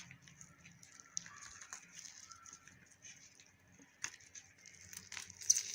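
Faint, scattered small clicks and wet crackle of fingers picking apart salt-cured fish flesh, with a sharper tick near the end.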